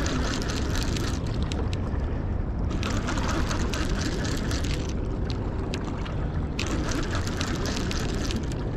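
Steady rush of wind on the microphone and swift river current, with a dense run of fast, faint ticks over it.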